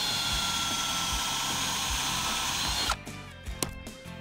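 Cordless DeWalt drill boring a hole through asphalt shingle for a lag screw, its motor whining steadily, then cutting off suddenly about three seconds in. Background music with a steady beat runs underneath.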